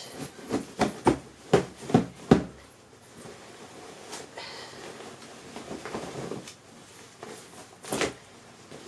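A quilted fabric tote bag being handled. It gives a quick run of about seven sharp flaps and pats in the first couple of seconds, then soft rustling of the fabric, and one more thump near the end.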